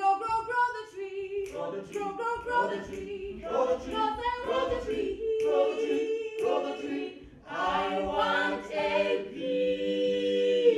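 A small group of voices singing a cappella in short, lively phrases, with no instruments. It finishes on a long held note that stops sharply near the end.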